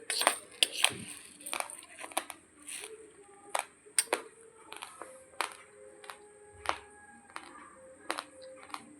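Raw long-grain basmati rice crunching between the teeth as it is chewed: sharp, irregular crunches, about two a second, with a faint steady tone underneath from about a third of the way in.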